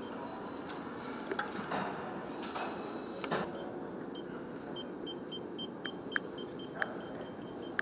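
Engine assembly-line workshop sound: a steady hum, a faint high beeping in short, evenly spaced pulses, and scattered metallic clicks and knocks from tools working on the engine. There is a quick run of clicks about a second in and a louder knock about three seconds in.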